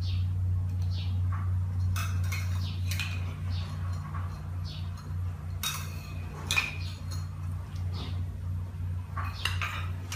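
Metal ladle clinking against a plate and a metal cooking pot as pieces are scooped and dropped into the water: scattered clinks, with a louder cluster a little past the middle. A steady low hum runs underneath.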